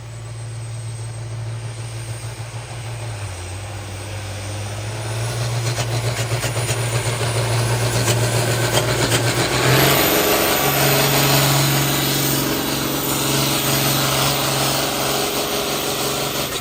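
Red International Harvester pulling tractor's engine running hard under load down the track, getting louder about five seconds in, with a high whistle coming in about halfway through.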